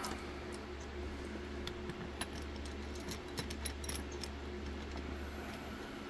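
Scattered light metallic clicks and taps, most between about one and a half and four and a half seconds in, as a picked brass mortise lock cylinder is handled and worked out of a small bench vise. A faint steady low hum runs underneath.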